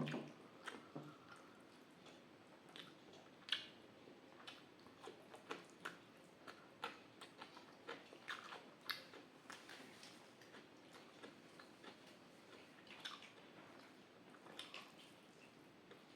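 Close-miked chewing: irregular soft, wet mouth clicks and smacks of someone eating rice with dal and vegetable dishes.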